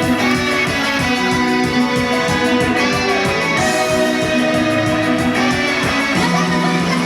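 Loud pop-rock music in a guitar-led instrumental passage, with electric guitar over a steady drum beat.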